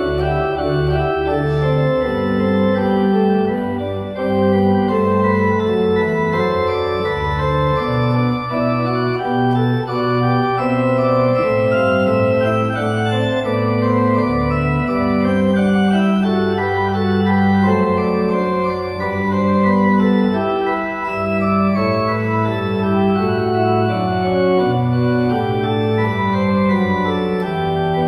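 Organ music: sustained chords played on the manuals over low bass notes from the pedalboard, the harmony changing every second or two.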